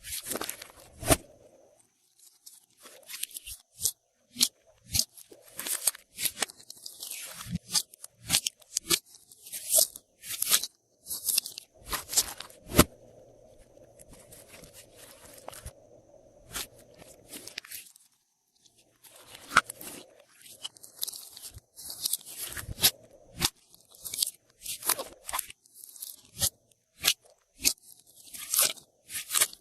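Glossy slime being squished and mixed with add-ins, making dense, irregular sticky clicks, pops and crunches, with a brief quieter stretch about two-thirds of the way through.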